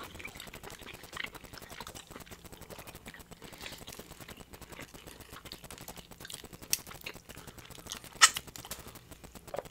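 Close-miked eating sounds: steady, fine wet clicks and smacks of chewing seafood-boil food, with two sharper clicks, the louder one about eight seconds in.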